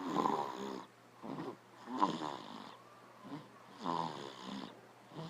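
Snoring, three snores about two seconds apart.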